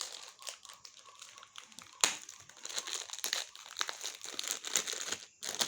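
Packaging crinkling and crackling as it is handled and opened, with a sharp crack about two seconds in.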